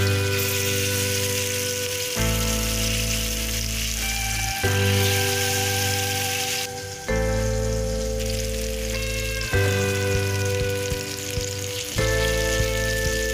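Chilli-masala-coated fish slices frying in shallow oil in a pan: a steady sizzle, louder in the first half and dropping back about halfway through. Background music of held notes that change every two to three seconds plays over it.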